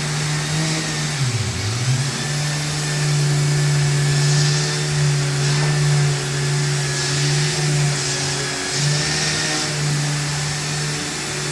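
Electric orbital sander running steadily while sanding, its hum dipping briefly in pitch about a second and a half in.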